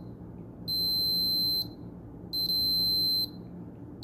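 Digital multimeter's beeper in diode mode giving two steady high beeps, each about a second long, as the probes bridge a bank of parallel Zener diodes. The beep signals a short: at least one of the Zener diodes is shorted.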